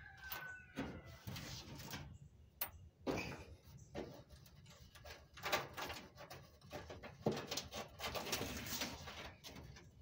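Loose coins being raked and picked out of the bottom of an old clothes dryer by hand: irregular clinks of coins and scrapes on the dryer's sheet-metal base.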